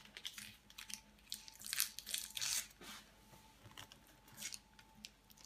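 Baking parchment being peeled by hand off the underside of a hot sponge cake sheet: short bursts of paper crinkling and tearing, loudest about two seconds in.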